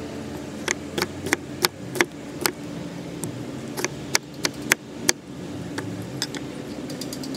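Carbon-steel cleaver chopping through a tomato onto a wooden cutting board: a quick, irregular run of sharp knocks as the blade hits the board, a short pause about three seconds in, then another run, with fainter taps near the end.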